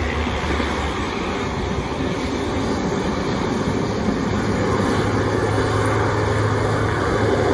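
Air Tractor AT-802F Fire Boss air tankers taxiing, their Pratt & Whitney PT6A turboprop engines and propellers running with a steady drone over a low hum, getting a little louder in the second half.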